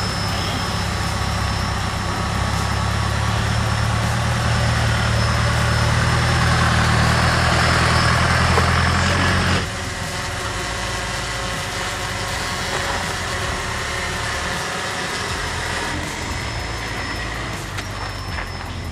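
A 4x4 vehicle's engine running steadily at low revs. About halfway through, the low engine note drops away suddenly and a quieter, steadier vehicle noise carries on.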